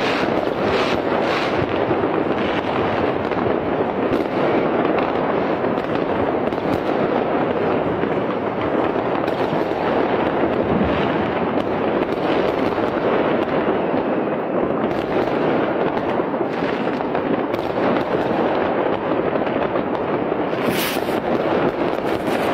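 Many fireworks and firecrackers going off at once, their crackles and bangs merging into a steady, dense din, with one sharper crack standing out near the end.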